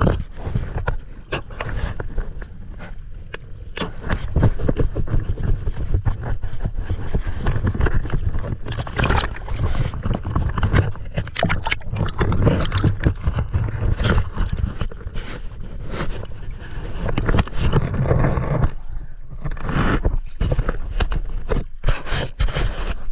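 Choppy lake water sloshing and splashing against a mask-mounted camera as it dips in and out of the surface, with dense crackling and a low rumble throughout.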